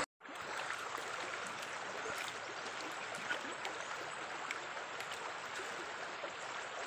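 Shallow river water running steadily over stones and gravel, a continuous rush.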